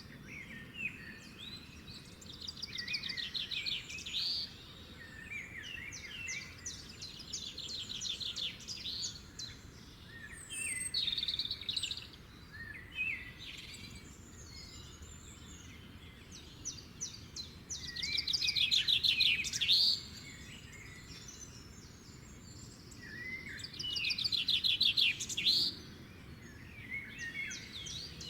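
Songbirds singing: overlapping songs of quick trills and chirps, with the loudest trilled phrases about two-thirds of the way in and again near the end, over a faint steady hiss.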